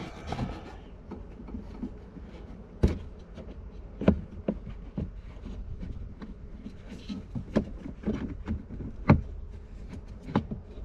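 Irregular plastic clicks and knocks, a few sharper than the rest, as a blend door actuator is fumbled against the plastic heater box under a Ford F-150's dash while being fitted onto the blend door shaft.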